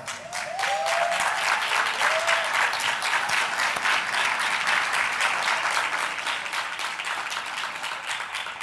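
Audience applauding steadily, the clapping thinning out toward the end.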